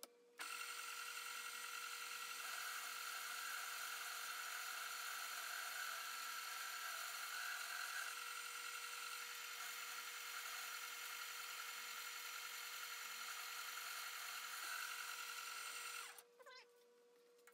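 Small metal lathe running, its chuck spinning a metal workpiece while the tool bit turns it down to size. It is a steady whine that starts about half a second in and stops abruptly about a second and a half before the end.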